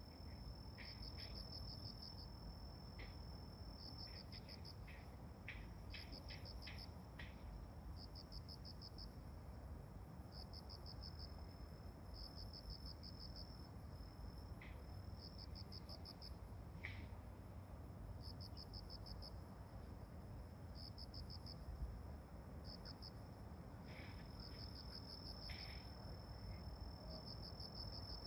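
Insects chirping in repeated pulsed phrases about a second long, with a few short high chirps mixed in, over a faint low steady rumble.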